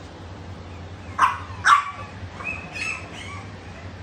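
Dog barking: two sharp barks just over a second in, then a few quieter, higher yips.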